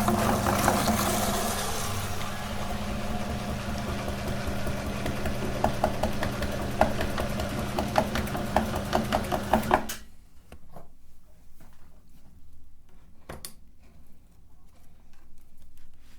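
Electric meat grinder running with a steady motor hum and quick ticking as it grinds jelly candy, switching off about ten seconds in. After that, only a few faint knocks and clicks.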